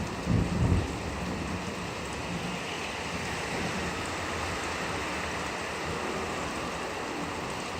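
Rain falling steadily and evenly, with a low rumble of thunder dying away in the first second.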